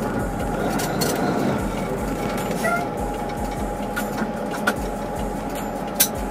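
Truck engine and road noise inside the cab while driving, a steady rumble with two sharp clicks near the end.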